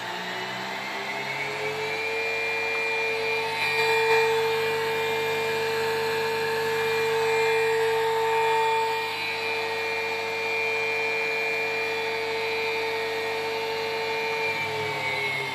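CNC router's motor whining: the pitch rises over the first couple of seconds, holds steady, then drops near the end as it winds down.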